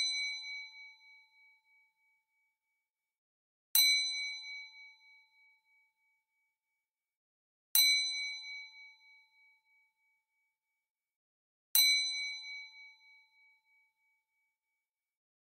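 A bell chime struck once every four seconds, each strike ringing out and fading over about two seconds, with silence between. Each ding marks the change to the next four-second phase of square breathing: inhale, hold, exhale, hold.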